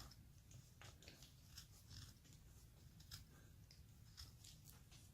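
Faint, short cuts of a hand carving blade shaving wood, a few soft scraping clicks at irregular intervals as the surface is smoothed.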